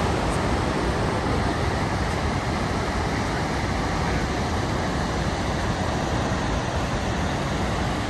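Gullfoss, a large two-tiered waterfall, rushing loudly and steadily as a dense, unbroken roar of falling water.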